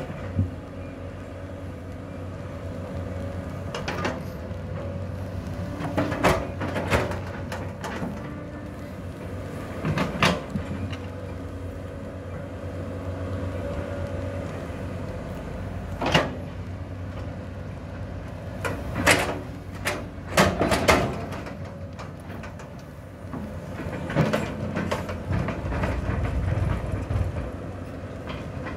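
Caterpillar 320D L long-reach excavator working: its diesel engine runs with a steady hum while the hydraulics move the arm and bucket through soil. Sharp metallic clanks from the bucket and arm come about ten times at irregular intervals, and the engine works harder with a deeper rumble near the end.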